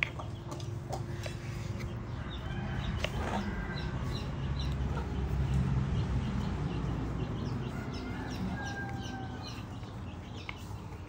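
Chickens clucking, with a couple of sharp knife taps on a wooden chopping board and a low background rumble that swells in the middle.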